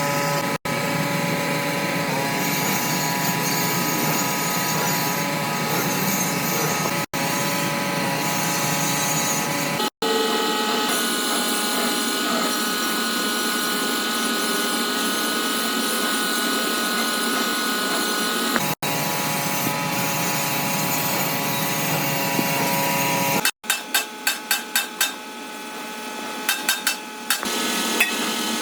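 A power tool running steadily with a fixed whine, cut short several times. Near the end come a quick run of about six sharp knocks, then a few more.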